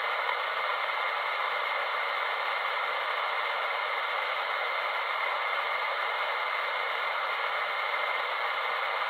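Static hiss from a 10-meter radio's speaker, tuned to upper sideband with no voice on the channel. The hiss is steady and has a faint steady whistle in it.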